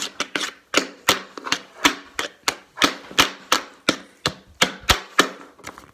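Pen tapping: a pen drummed fast against a hard surface and the hand, sharp clicks and knocks several a second in an uneven rhythm, with a heavier thump about five seconds in.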